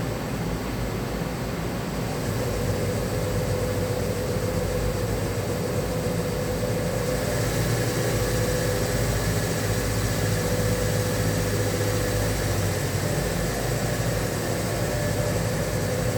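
A 1993 Fadal VMC40 CNC vertical machining center running under power: a steady mechanical hum with a wavering mid-pitched tone. It grows a little louder about two seconds in, and a higher hiss joins around the middle.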